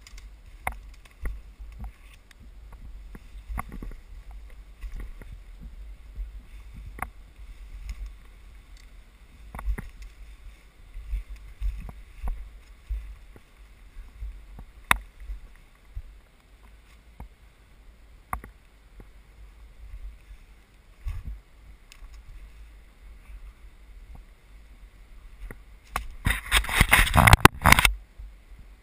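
Handheld camera handling noise and footsteps on rocky ground: a low rumble with scattered knocks and clicks, then a loud rustling scrape lasting about two seconds near the end.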